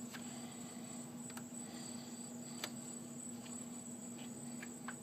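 Faint steady hum and hiss with four light clicks from a gloved hand handling a rubber vacuum hose and plastic fittings in a car's engine bay.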